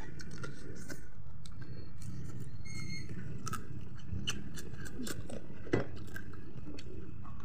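Close-up mouth sounds of a man chewing rice and chicken eaten by hand: wet chewing and smacking with scattered small clicks, one sharper click a little before the end. A short high chirp comes about three seconds in, over a steady low background rumble.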